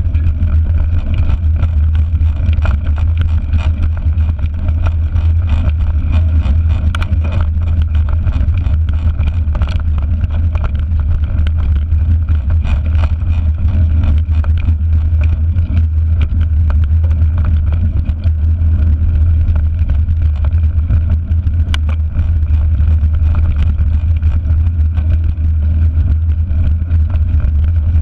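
Mountain bike rolling over a dirt and gravel track, heard through a handlebar-mounted action camera as a loud, steady low rumble with scattered small clicks and rattles.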